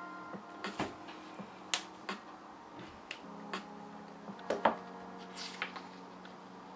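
Hands handling sheets of printer paper on a desk: scattered light taps, clicks and brief rustles as the pages are touched and flattened, the sharpest knock a little past halfway.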